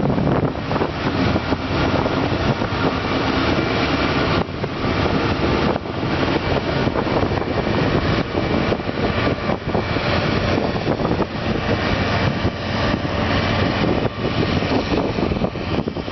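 Harvest machinery running steadily close by: a dense, loud engine and mechanical noise that stays level throughout.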